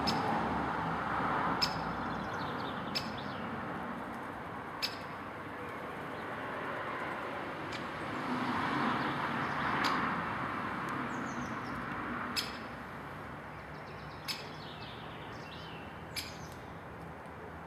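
Wild birds calling: sharp single call notes every second or two, with faint twittering song in between, over a steady background noise that swells about a second in and again around nine seconds.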